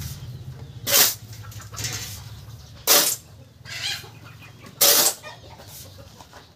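Steel shovel scraping and scooping into a heap of sand and cement being mixed by hand, one short, gritty stroke about every two seconds, three times.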